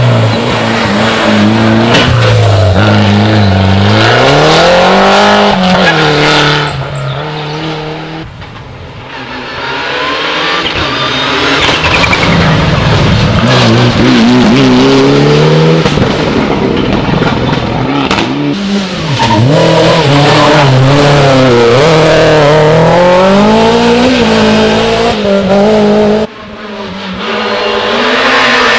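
Rally car engines driven hard, revving high and dropping back again and again through gear changes and braking. There are several separate loud passes, cut one after another.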